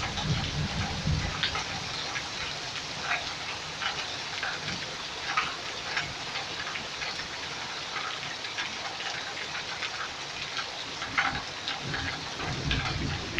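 Torrential rain pouring down steadily, with many sharp drop splashes scattered throughout, and water running down a rain gutter.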